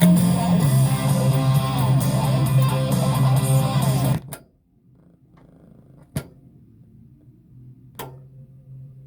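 Guitar music played through a Sansui Model 2000 stereo tuner amplifier, cutting off abruptly about four seconds in. After that there is a faint low hum and two sharp clicks.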